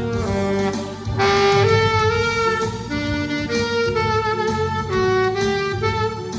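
Saxophone playing a melody in a series of held notes that change pitch every half second to a second, recorded dry with no added effects.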